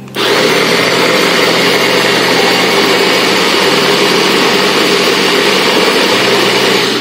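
Small electric food chopper running with its top pressed down, its blade chopping the spice paste at a steady speed. The motor starts right away, runs without a break for about seven seconds, and stops just at the end.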